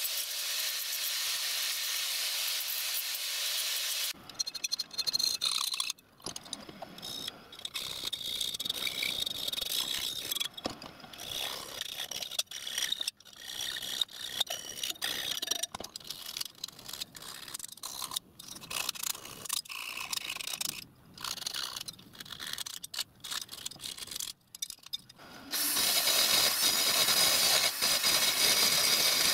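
An angle grinder cutting steel with a steady high noise, stopping about four seconds in. Then a long run of irregular scraping strokes on the steel shovel blank held in the vice. Near the end an electric drill starts running steadily, drilling the blade.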